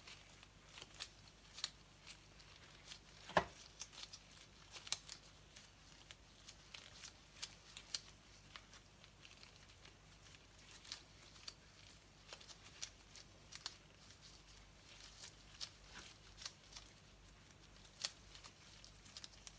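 Faint, scattered clicks and crinkles of disposable-gloved hands pleating and pinching steamed-bun dough closed, with one sharper click about three and a half seconds in.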